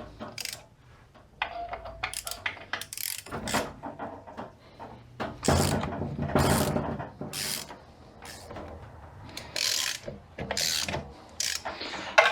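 Hand tools working to pull the pump out of a 42RE automatic transmission: a run of short, irregular metallic clicking strokes, busiest around the middle, as the pump is worked loose.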